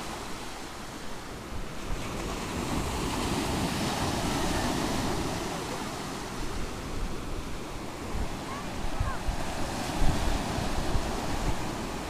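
Small sea waves breaking and washing up a pebble beach, swelling and easing, with wind buffeting the microphone in gusts that are strongest near the end.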